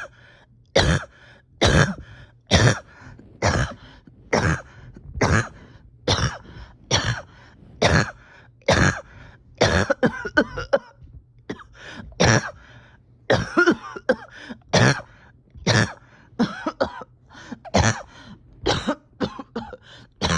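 A person coughing over and over in a long fit, one harsh cough about every second with a few quicker ones near the end. It is a painful cough from a chest that feels tight.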